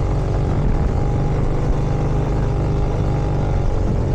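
1965 Harley-Davidson Sportster XLCH's air-cooled V-twin engine running steadily. The owner is chasing a sound like a wheel rubbing and strong vibration, which he suspects come from the engine mounts.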